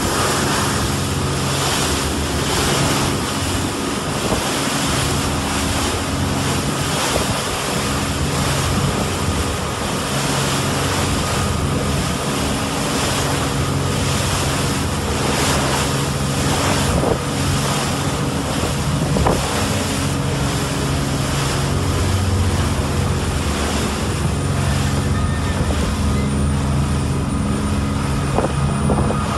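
Fishing boat's engine running steadily under way, a constant low hum, over the rush of churning wake water and wind buffeting the microphone.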